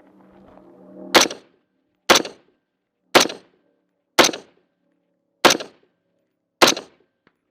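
A rifle fired six times in fairly quick succession, roughly one shot a second. Each shot is a sharp crack with a short ringing tail.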